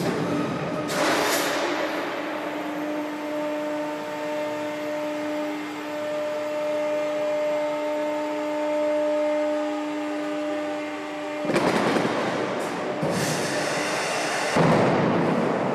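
Aircraft main landing gear extending in a hydraulic test rig: a steady hydraulic whine with several held tones while the bogie swings down, then loud bursts of hissing and clatter from about three quarters of the way in as the gear reaches the down position.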